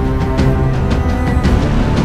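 Background music with a steady drum beat and sustained tones.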